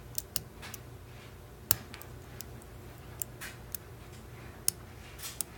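Small, sharp, irregular clicks of a lock pick and tension wrench working the pins of a six-pin Schlage padlock with serrated driver pins, as pins are set. Two clicks, about a second and a half in and near the end, stand out above the rest.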